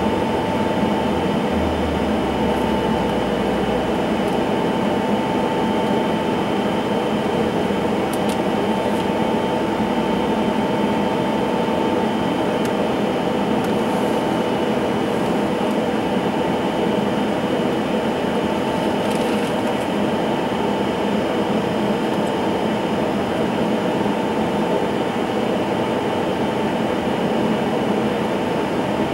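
Dornier 328JET's Pratt & Whitney PW306B turbofan running steadily at idle after its start, heard from inside the cabin as a constant rushing hum with a steady whine in it.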